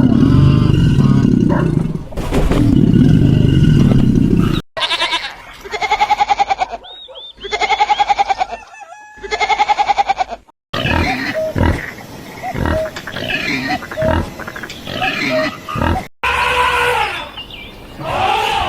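A run of different animal calls cut one after another. It opens with a loud, low, rough stretch of about four and a half seconds, then comes three long pulsing calls, then a string of many short calls, and near the end a few rising-and-falling calls.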